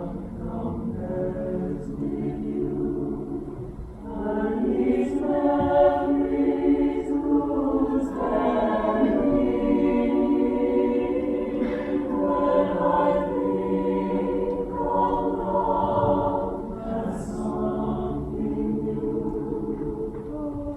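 A choir of many voices singing sustained chords, growing louder about four seconds in.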